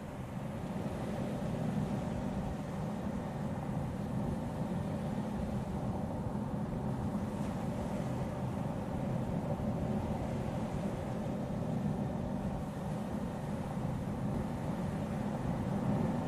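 Audi Q3 SUV driving along a road at a steady cruising speed: a steady mix of engine and tyre noise with no change in pitch.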